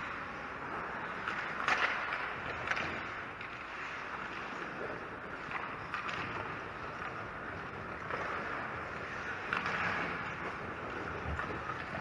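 Ice hockey rink sound: a steady scraping hiss of skate blades on the ice that swells and fades, with a few sharp clacks of sticks and puck.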